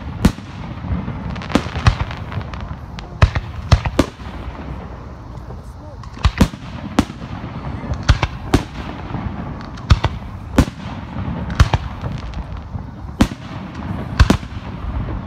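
Aerial fireworks display: shells bursting overhead in sharp bangs, about one a second at irregular spacing, over a continuous low rumble.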